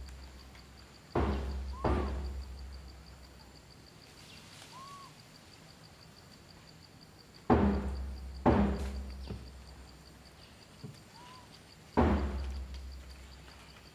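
Five sudden thumps in three groups (two early, two in the middle, one near the end), each with a low boom that fades away over about a second. A few short, rising-and-falling squeaky calls come in between.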